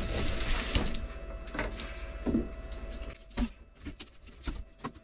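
A large cardboard shipping box being shifted and handled: cardboard scraping for about the first second, then scattered knocks and clicks.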